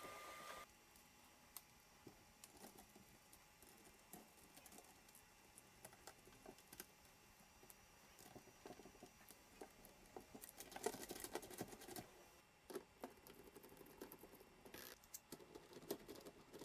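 Faint small clicks, taps and light scraping of a small screwdriver and hard 3D-printed plastic parts being handled and screwed together. A denser run of clicking comes about ten to twelve seconds in. A faint steady hum cuts off just after the start.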